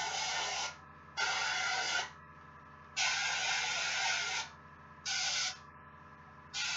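Airbrush spraying thinned metallic paint in short hissing bursts, about five of them, each lasting from half a second to a second and a half, with pauses between. A faint steady low hum runs underneath.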